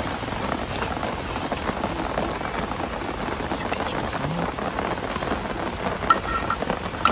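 Steady, heavy rain pouring down, with a couple of short, sharp clinks near the end.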